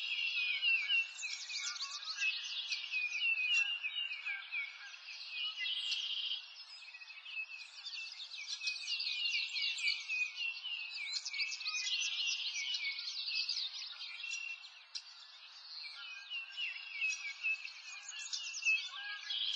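A busy chorus of birds chirping and trilling, many quick high chirps overlapping without pause, easing off briefly a little past the middle.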